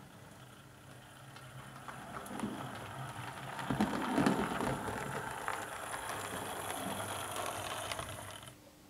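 Model 4MT Standard Tank locomotive running on the layout: the motor whirs with a faint high whine while the wheels rattle over the track. It grows louder over the first few seconds and drops away sharply near the end.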